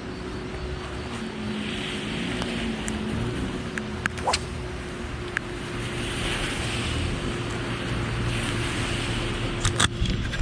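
Steady wind and surf noise at the shoreline, with a few sharp clicks, several of them close together near the end.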